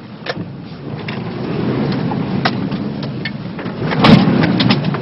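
Toyota Land Cruiser Prado 4x4's engine running and growing louder over the first two seconds, with scattered knocks and a louder burst of noise about four seconds in.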